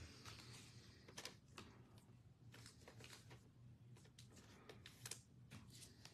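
Near silence: quiet room tone with faint, scattered light clicks and taps, about a second apart.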